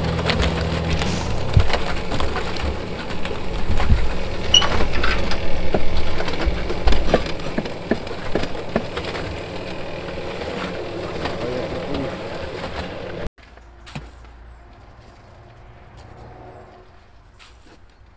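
Concrete mixer drum turning while tipped, wet mortar sliding out and spilling into a steel wheelbarrow with a dense crackle of sand and grit. About thirteen seconds in the sound cuts off abruptly to a much quieter stretch with a few light scrapes of a trowel in mortar.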